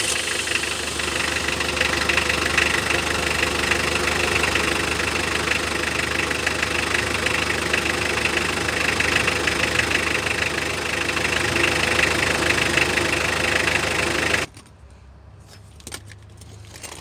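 Diesel engine idling steadily, heard close to the exhaust pipe from under the vehicle, with a crack at the catalytic converter/resonator freshly sealed with exhaust cement: no smoke or leak, and a smoother sound. The sound cuts off abruptly about two and a half seconds before the end.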